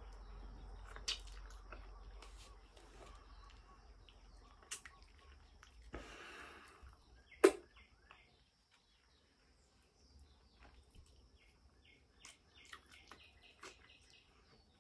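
Faint outdoor ambience: a steady high insect drone with scattered short bird chirps, mostly in the second half. A few sharp clicks break in, the loudest about seven and a half seconds in.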